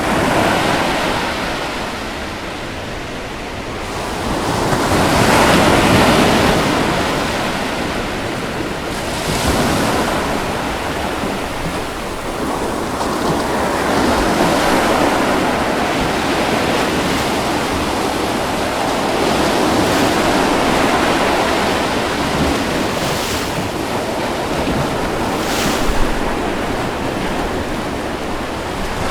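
Ocean waves breaking on a beach: a continuous wash of surf that swells and falls back every few seconds, with two brief sharper splashes late on.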